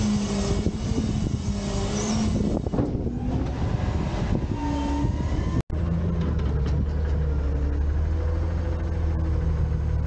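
Autocar front-loader garbage truck's engine revved up to drive the Heil hydraulic lift arms while a dumpster is raised and tipped; its pitch sags downward over the first few seconds. It breaks off for an instant about halfway, then runs on at a steady high speed while the arms lift a full dumpster.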